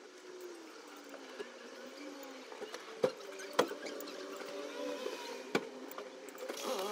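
Faint distant traffic hum with slowly rising and falling engine tones, broken by three sharp clicks of a spoon against a bowl: two close together about three seconds in and one more a couple of seconds later.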